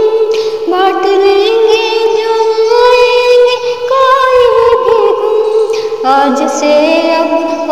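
A woman singing a Hindi film song in a sustained, melismatic style, holding long notes with wavering vibrato.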